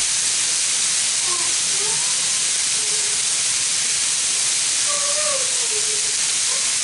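Chicken breasts sizzling in a frying pan: a steady hiss of frying.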